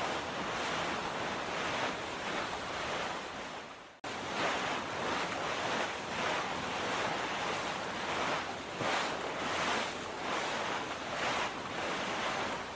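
Ocean waves washing: a steady rushing noise that swells and eases. It fades out about four seconds in and starts again straight away.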